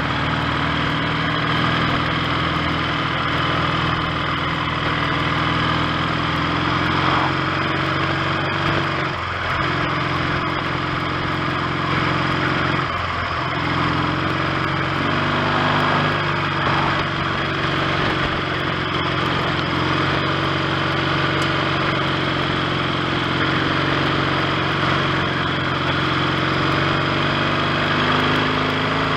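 1970 Triumph T100C's 500 cc parallel-twin engine running while the motorcycle is ridden, its note changing in steps with brief breaks about nine and thirteen seconds in. It runs steadily on freshly fitted ignition points.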